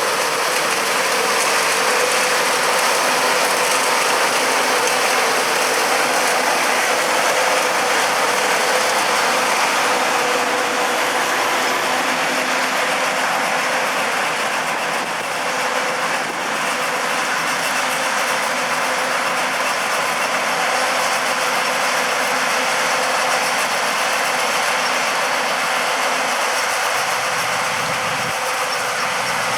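Amadas 9970 self-propelled peanut combine running in the field: a steady, loud mechanical clatter of its machinery with a constant hum underneath.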